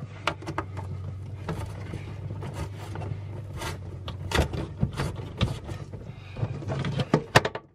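Cell booster antenna cable being pushed and worked through a hole in a wooden cabinet frame, scraping and clicking against the bundled wiring in irregular bursts. A steady low hum runs underneath and stops near the end.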